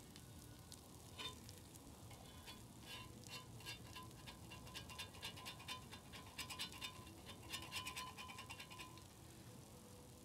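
Slices of meat frying on a hot griddle: faint sizzling with many quick crackles and pops that grow busier after the middle, along with the scrape of a knife working the meat on the griddle.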